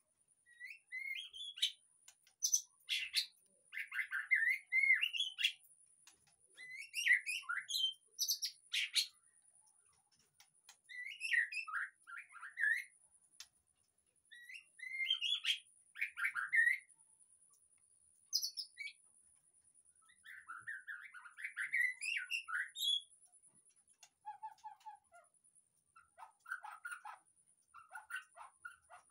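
White-rumped shama (murai batu) singing: varied whistled and chattering phrases of a second or two each, with short pauses between them, ending in a run of quick repeated notes. A faint steady high-pitched tone runs underneath.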